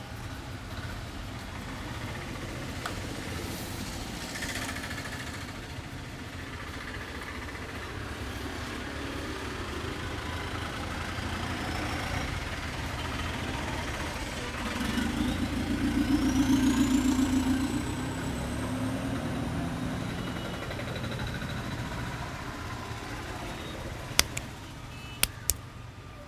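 Street traffic: a steady low rumble of motor vehicles, with one vehicle passing louder about fifteen to eighteen seconds in. A few sharp smacks near the end.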